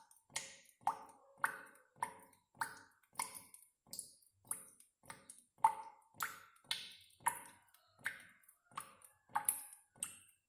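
Water drops falling one by one, each a short ringing plop, at a steady rate of about two a second.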